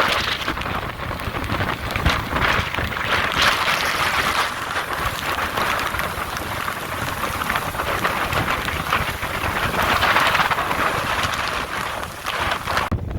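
Hurricane-force wind and heavy rain beating on the microphone: a dense rushing noise with a low rumble that swells and eases with the gusts. Just before the end the high hiss drops away abruptly.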